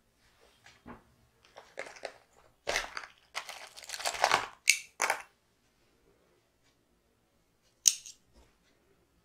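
Hands handling wool yarn and a small knitted piece on cloth: a few seconds of irregular rustling and scraping as the yarn is pulled through to finish the last stitch, then one short sharp click near the end.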